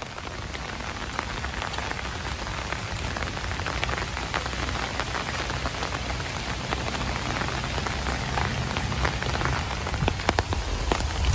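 Heavy rain falling steadily, a continuous hiss with scattered sharp hits of individual drops close by. A low thump near the end.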